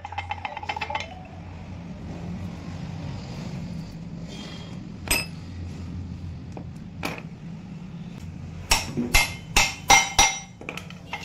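Hammer blows on a steel axle rod set in a motorcycle crankcase's 6001 bearing packed with candle wax, forcing the bearing out of its seat. There are a few single knocks in the middle, then a fast run of about nine hard metallic strikes near the end, over a steady low hum.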